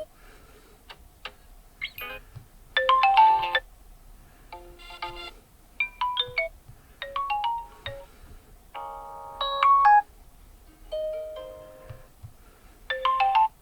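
Vivo S17 smartphone ringtones playing from the phone's speaker: a string of short electronic melody snippets, each a second or so long, with brief pauses between them, the note patterns changing from one snippet to the next.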